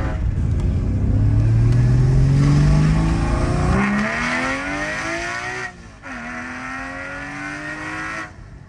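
Porsche 981 GT4's 3.8-litre flat-six, on catless headers with the exhaust valves open, accelerating hard with its note climbing steadily. The note dips at a gear change about six seconds in, climbs again, then drops off sharply near the end.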